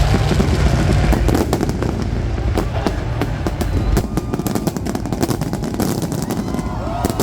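Fireworks crackling and popping in a dense, rapid string of sharp cracks, with a deep low rumble that stops about a second in.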